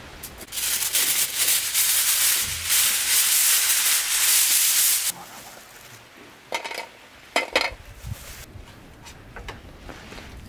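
Aluminium foil being pulled off the roll and spread out, a loud crinkling rustle lasting about four and a half seconds, followed by two short crackles.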